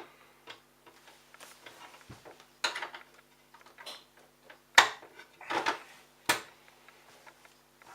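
Hard knocks and clatters of plastic parts being handled, about four sharp knocks with the loudest a little past the middle, over a faint steady hum.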